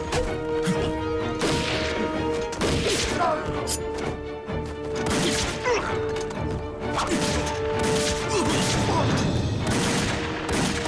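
Dramatic film score with held notes over repeated hits and crashes of a fight scene, with brief cries between them.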